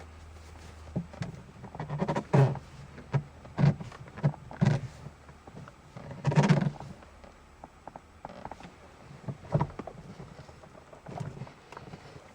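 Irregular straining grunts and rustling, with short knocks, as someone twists hard at a tight car gear-shift knob gripped through a shirt.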